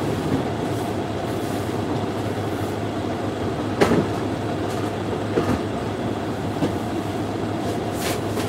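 Steady rumbling noise with a low hum, with a few light knocks over it.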